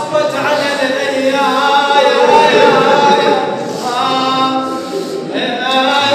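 A man singing unaccompanied in a Shia devotional chant, with long held notes and sliding melodic lines.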